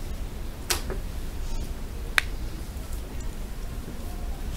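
Two short, sharp clicks about a second and a half apart, the second the sharper, over a steady low room hum.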